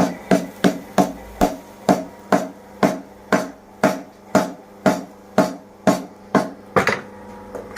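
Blacksmith's power hammer striking metal at an even pace of about two blows a second, each blow sharp and followed by a metallic ring.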